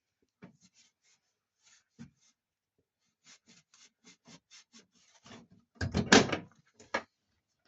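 Plastic parts of a tumble dryer being handled while it is wiped down and reassembled: light scattered clicks and a quick run of short rubbing strokes, then a louder knock and clatter about six seconds in and a sharp click just after.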